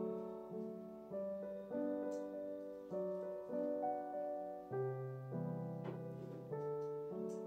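Background piano music: a soft chord struck a little under twice a second, each one fading away before the next.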